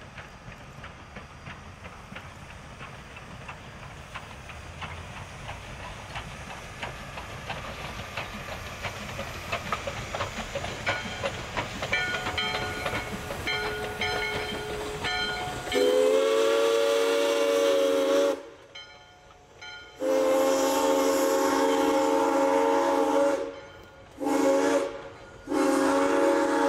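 A steam train approaching and growing louder, with a rhythmic clicking of wheels over the rails. Then its steam whistle sounds four blasts, long, long, short, long: the standard grade-crossing signal.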